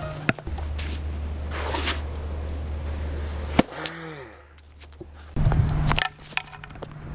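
A single sharp crack of a tennis racket striking the ball about three and a half seconds in, over a low steady hum. A few short falling tones follow just after the hit, and another knock comes about six seconds in.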